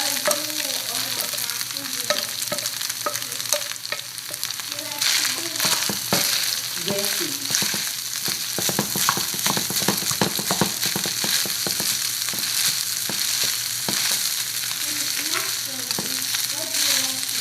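Fried rice with carrots sizzling in a hot pan while it is stirred, the spatula scraping and clicking against the pan. The scraping strokes come thick and fast from about five seconds in.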